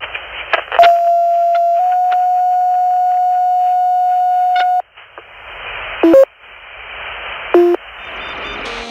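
Fire dispatch two-tone page heard over a radio scanner: a steady tone for about a second, then a slightly higher tone held for about three seconds, over radio hiss. Two short beeps follow a little later.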